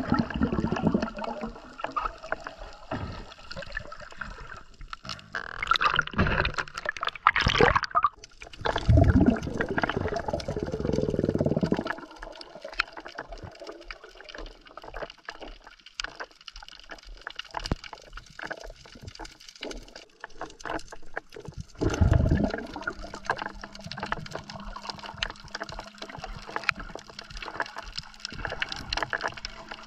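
Underwater sound of the sea picked up by a diver's camera: a steady water hiss full of small crackling clicks, with louder bursts of bubbling, rushing water several times as the diver moves. In the last third a steady low hum joins in.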